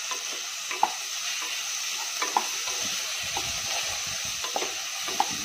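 Chopped onions sizzling in hot oil in a pressure cooker, stirred with a wooden spatula that scrapes the pot and knocks against it lightly a few times.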